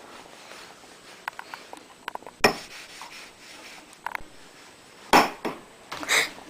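Scattered clicks and knocks of objects being handled, with three louder knocks about two and a half, five and six seconds in.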